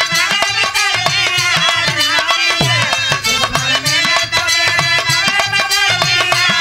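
Instrumental interlude of a folk-song ensemble: hand-played dholak barrel drums keep a brisk rhythm, their bass strokes sliding down in pitch, under a melody line.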